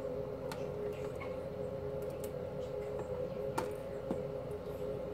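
Room tone: a steady two-pitch hum with a few light, scattered clicks, about four in all.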